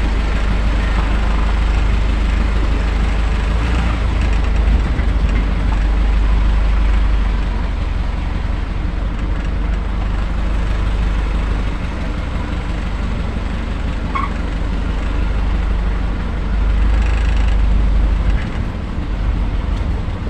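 Delivery truck's engine and road noise heard from inside the cab while driving, a steady deep rumble.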